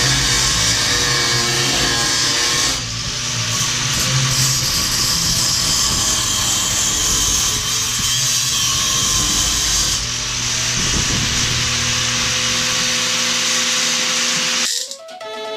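Handheld power grinder running steadily against metal, its tone shifting about three seconds in and again about ten seconds in as the load changes, then stopping near the end.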